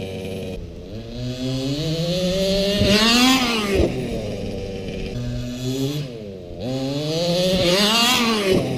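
Electric motor and geartrain of an Axial SCX10 RC crawler whining, rising in pitch as it speeds up and falling back as it slows, twice over. There are a couple of sharp knocks around the first speed peak.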